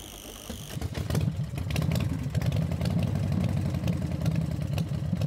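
An engine running with a rapid, rough pulse, starting under a second in and then holding steady.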